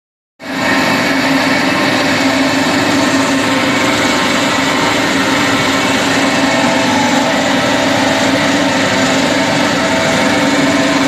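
Electric-motor-driven wood sawdust machine running steadily, a loud even whir with a strong steady hum.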